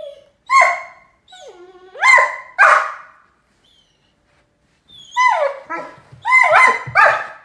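Great Dane puppy barking, high-pitched barks that drop in pitch: three, then a quiet pause, then four more in quick succession.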